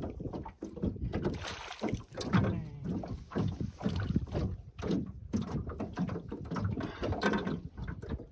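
Water splashing and irregular knocks against an aluminium boat hull as a small wels catfish is drawn alongside on the line and lifted out by hand.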